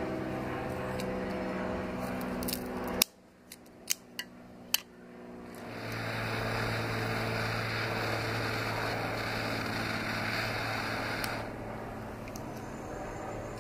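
Butane torch lighter lighting a cigar: several sharp ignition clicks, then the jet flame hissing steadily for about six seconds before cutting off abruptly. A steady low hum runs underneath at the start.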